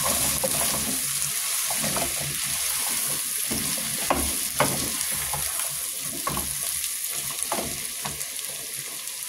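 Potatoes and spices frying in a pot with a steady sizzle while being stirred, the utensil scraping and knocking against the pot at irregular moments.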